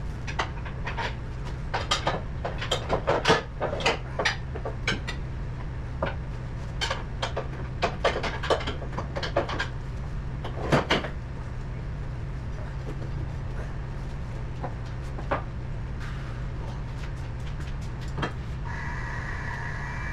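Metal clanks and knocks as the steel support legs under a Wood-Mizer LT35 portable sawmill's carriage are worked up by hand. They come thick and fast for the first several seconds, then only now and then. A steady low hum runs underneath, and a higher-pitched whine starts near the end.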